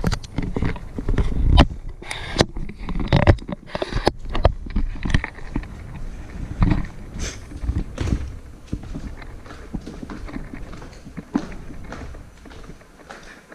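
Footsteps on timber floor and stairs, with irregular knocks and bumps from the moving camera.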